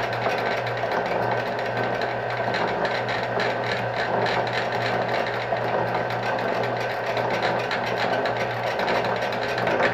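Rhodes metal shaper running, its ram stroking back and forth as the tool cuts an internal keyway in a metal adapter. There is a steady low motor hum under a fast, even, repeating clatter from the stroking mechanism.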